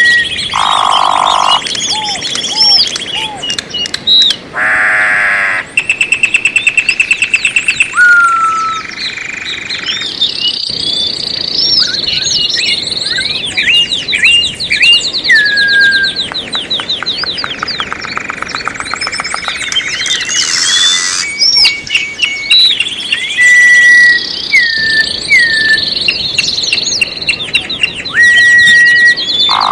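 Several songbirds singing over one another: clear whistled notes that slide up and down, with fast, evenly repeated trills.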